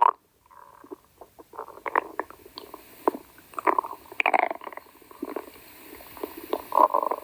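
Hungry stomach growling: a string of irregular gurgles and squelchy rumbles, busier around the middle and again near the end.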